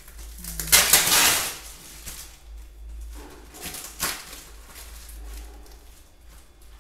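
Plastic wrapping on a shipment bale being torn open and handled by hand: a loud ripping rustle about a second in, a shorter one around four seconds, and softer crinkling between.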